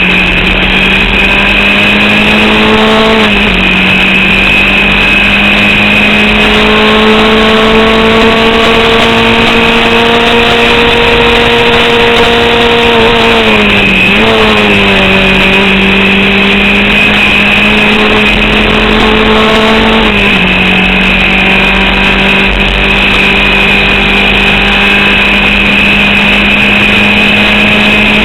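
Formula Vauxhall single-seater's 8-valve engine at racing speed, heard onboard. The revs climb slowly through each gear and drop sharply three times, at about three seconds in, at about fourteen seconds in and at about twenty seconds in, with a steady high whine over the engine note. The engine is misfiring, and an alternator/battery fault is draining its power, so it is down on revs.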